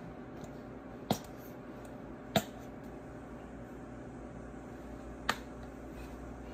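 Three sharp plastic clicks from the flip-top caps of seasoning containers snapping shut and open, the middle one loudest, over a steady low hum.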